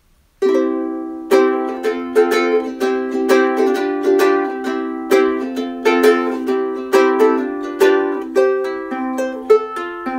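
Ukulele strummed in a steady rhythm of chords, with an accented strum about once a second, starting about half a second in. Recorded through a Rode VideoMic Pro shotgun microphone.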